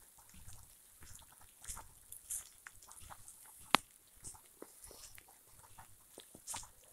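Bare feet walking over a dirt track strewn with dry leaves, bark and twigs: soft footfalls with crunching and crackling underfoot, and one sharper crack a little over halfway through.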